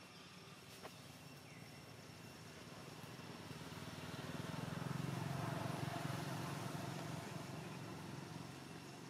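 A vehicle passing by: a low, rushing engine and road sound that grows to a peak about five seconds in and then fades away.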